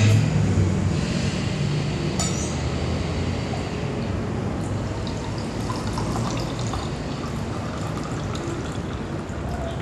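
Beer pouring from a swing-top glass bottle into a drinking glass, with a steady trickle of liquid filling the glass. There is a sharp glassy clink about two seconds in.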